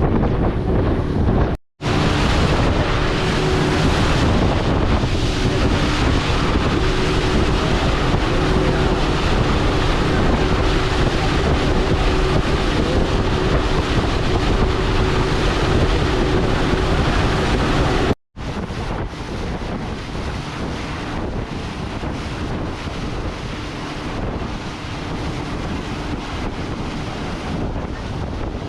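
Motorboat running at speed across open water: a steady engine hum under loud wind buffeting the microphone and rushing water. The sound drops out abruptly twice for a split second.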